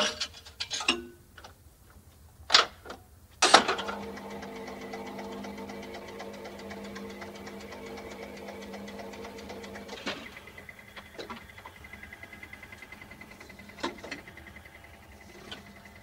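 Jukebox mechanism selecting a 45 rpm record. A few sharp clicks and clunks come first, the last and loudest at about three and a half seconds. Then the changer's motor runs with a steady hum and fast, even ticking, and single clicks sound as it shifts near the end.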